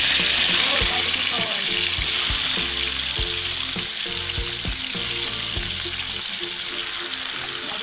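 Raw chicken pieces dropping into hot oil with sautéing onions and sizzling loudly, the sizzle strongest in the first second as the meat hits the oil. Occasional soft knocks sound as the pieces land and are pushed in.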